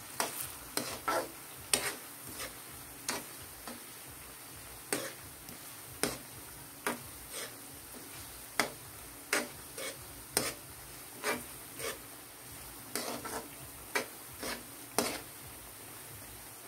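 Sweet potato cubes deep-frying in oil in a wok with a steady sizzle, while a ladle stirs them and knocks and scrapes against the pan in irregular strokes about once a second.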